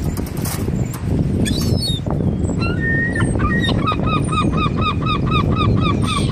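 Gull calling in a rapid run of repeated, down-slurred notes, about five a second, starting about halfway through. Heavy wind rumble on the microphone throughout.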